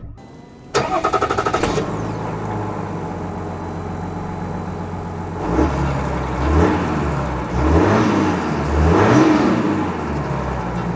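GMC Sierra's 3.0-litre Duramax inline-six turbo-diesel starting up about a second in, then idling steadily. In the second half it is revved up and back down three or four times.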